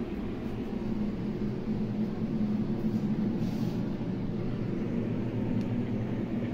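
Steady low mechanical hum with several even tones, and a brief soft rustle about three and a half seconds in.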